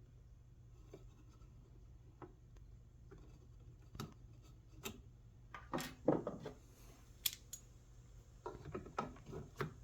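Scattered light clicks and taps of a small hand tool, an Allen key, being handled and fitted on the belt sander's fan housing. The taps come sparsely at first and more closely together near the end.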